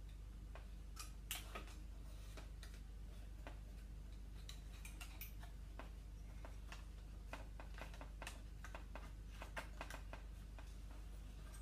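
Scattered light clicks and taps of a circuit board and its connectors being fitted back into an LCD TV during reassembly, over a steady low hum.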